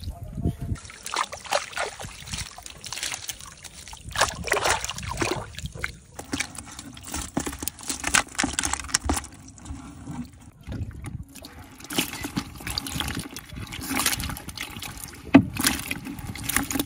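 Live fish, mostly snakeheads, wriggling and flopping in shallow water in a plastic bucket: irregular wet splashes and trickles, with one sharper slap near the end.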